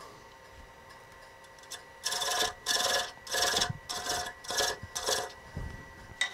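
Hand thread chaser scraping against spinning maple on a wood lathe in six short rasping strokes, a little under two a second, starting about two seconds in, over a faint steady whine from the lathe.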